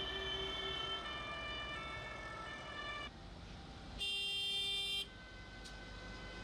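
Tractor horns sounding in long, overlapping tones of several pitches over a low traffic rumble, with one loud blast lasting about a second past the middle.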